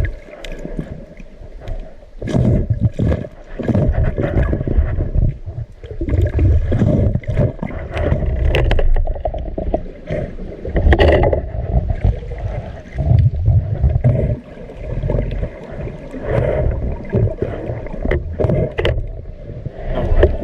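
Water sloshing and gurgling in irregular surges, with scattered clicks and knocks.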